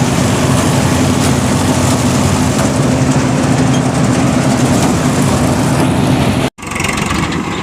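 Engine of a harvesting machine running steadily under load. Near the end the sound cuts out for an instant, then comes back slightly quieter.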